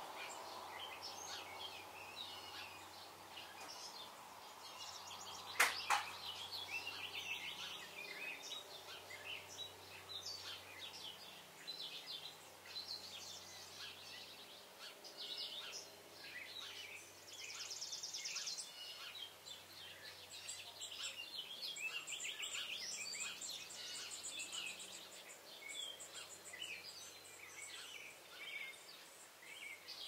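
Many birds singing and calling together outdoors, a continuous mix of short chirps and rapid trills. A single sharp knock stands out about six seconds in.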